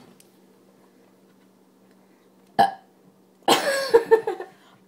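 Burps after gulping carbonated Pepsi: a short sharp one about two and a half seconds in, then a longer, wavering pitched burp about a second later.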